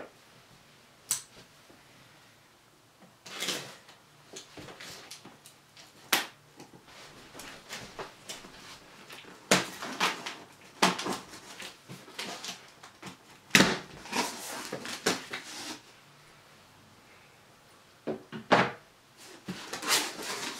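A cardboard speaker box being opened by hand: irregular scraping and rustling of the flaps and packing, broken by a series of sharp knocks and clicks.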